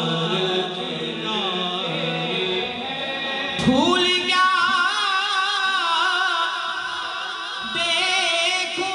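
Background music with a singing voice: long, wavering held notes, with a new phrase opening on a rising glide a little under four seconds in.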